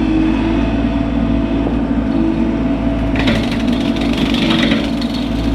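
Bobcat E42 mini excavator's diesel engine running steadily under load, driving a hydraulic brush cutter attachment with a steady whine. About three seconds in a rougher, hissing chatter joins as the cutter chews into brush.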